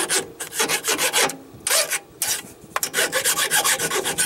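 Hand file rasping quickly back and forth on the steel shaft of a fifth wheel landing-jack gearbox, in several runs of strokes with short pauses between them. It is taking off a raised burr that stops the gearbox from sliding off.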